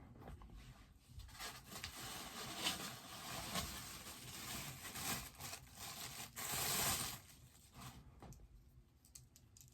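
Bobblehead box packaging being handled and torn open: several seconds of uneven rustling and tearing that dies down near the end.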